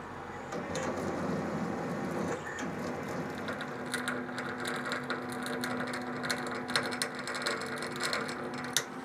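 Metal lathe turning a 303 stainless steel bar at about 180 RPM while a 3/4-inch reamer fed from the tailstock cuts into its bore: a steady machine hum with a low tone, and from about four seconds in a rapid run of sharp ticks and crackles as the cut bites and chips come off.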